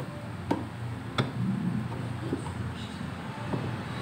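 Two sharp clicks, about half a second and a second and a quarter in, then a few fainter taps, as a rubber drive belt is worked by hand onto the motor and drive pulleys of a twin-tub washing machine. A steady low rumble runs underneath.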